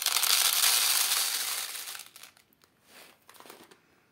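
Safflower seeds poured from a plastic bag into a plastic tray on a kitchen scale, with the bag crinkling. A dense rattling rush for about two seconds, then it tapers off into a few smaller rustles.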